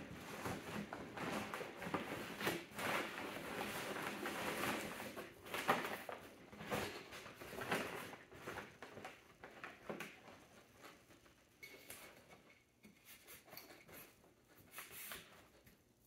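Rustling and scuffing of a Hoover commercial upright's cloth outer bag and paper dust bag being handled and pulled up onto the handle, with scattered small clicks. It is busier for the first ten seconds or so and fainter near the end.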